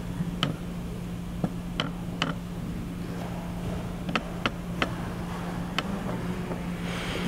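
About nine light, sharp clicks and taps at irregular intervals over a steady low electrical hum in a room sound system.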